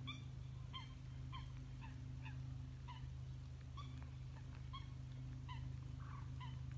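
Waterfowl calling from the reed beds: a run of short, repeated calls, each dipping slightly in pitch, coming about once or twice a second. A steady low hum runs underneath.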